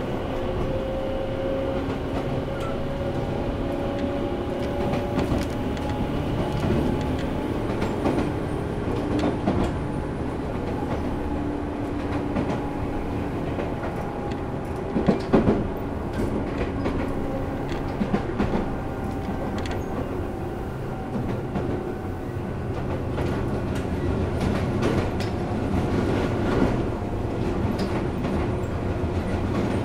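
Tobu 10000 series electric train heard from inside its motor car at speed: a steady rumble of wheels on rail under the whine of the traction motors and gears, one tone rising slowly in the first few seconds. About halfway there is a short run of louder clacks from the wheels over the track.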